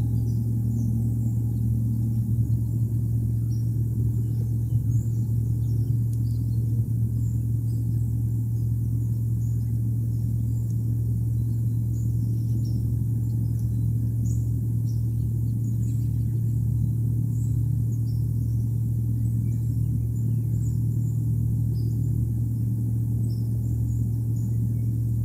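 A steady low hum, with faint, short high-pitched chirps scattered through it.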